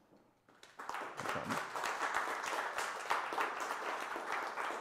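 Small audience applauding, starting about a second in and keeping on steadily.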